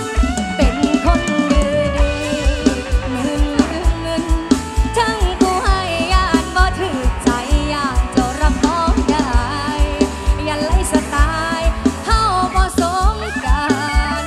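Mor lam sing band music: a singer's voice with bending, ornamented notes over a drum kit keeping a steady kick-drum beat.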